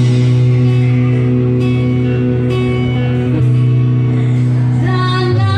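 Live band music: electric guitar and bass guitar holding a sustained chord over a steady bass note, the chord changing about halfway through, with a woman's singing voice coming in near the end.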